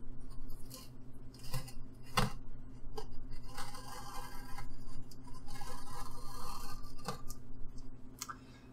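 X-Acto craft knife blade drawn along the edge of a glass plate, slicing off overhanging blue tape: scratchy scraping with a few sharp ticks, dying away near the end.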